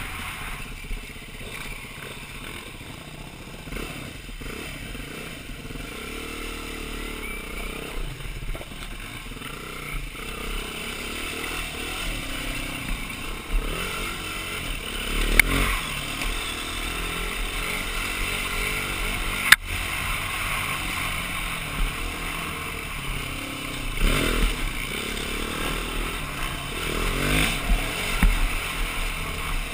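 2009 BMW G450X's single-cylinder four-stroke engine running under way, its revs rising and falling with the throttle. Two sharp knocks a few seconds apart past the middle.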